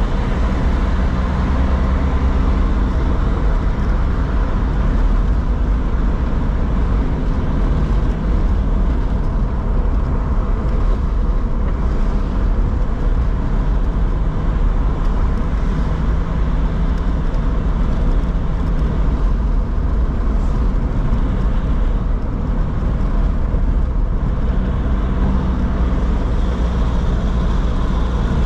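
Steady road noise inside a moving car: engine hum and tyres running on a wet street.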